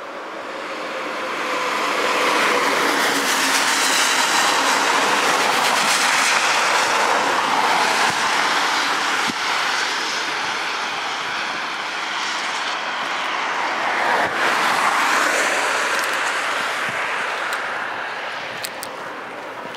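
Vehicles passing close by on the road: tyre and engine noise that swells over the first couple of seconds, stays loud with two peaks, and fades near the end.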